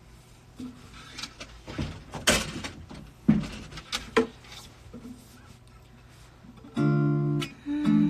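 A few knocks and rubbing sounds, then acoustic guitar chords strummed about seven seconds in and again just before the end.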